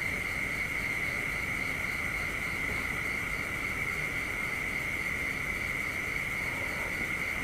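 Night insects shrilling steadily on one high note, with a fainter chirp above it repeating about three times a second.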